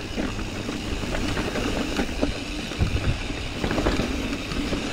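Mountain bike riding down a dirt trail: tyres rumbling over dirt and rocks and the bike rattling with frequent small knocks over bumps, with wind noise on the action camera's microphone.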